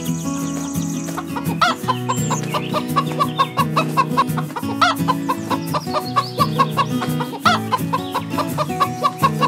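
Chickens clucking in a quick, regular run of short clucks, with a few louder squawks, over background music with a steady low drone.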